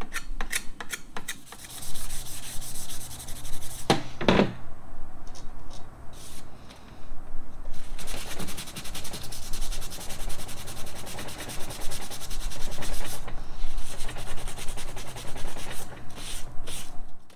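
Rapid back-and-forth hand rubbing strokes on the wooden limb of a 1967 Ben Pearson Sovereign Mace recurve as its old polyurethane finish is worked off. There is a sharp knock about four seconds in, and the strokes thin out for a few seconds before running steadily again.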